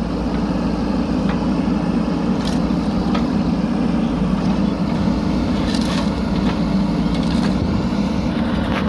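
JCB 3DX backhoe loader's diesel engine running steadily under work, with a few faint clicks over it.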